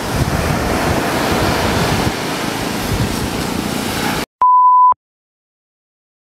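Ocean surf breaking on the beach, with wind buffeting the microphone. About four seconds in it cuts off abruptly, followed by a short steady electronic beep lasting about half a second and then dead silence.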